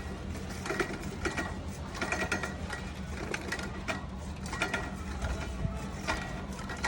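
Irregular mechanical clicking and metal scraping, in short clusters every half second to a second, over a steady low hum.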